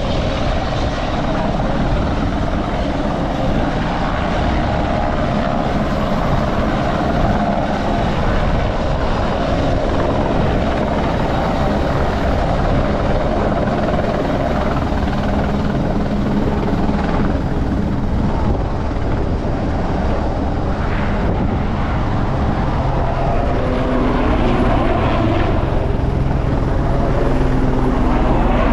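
RAF Puma helicopter running, with a steady rotor beat and turbine noise that grows a little louder near the end.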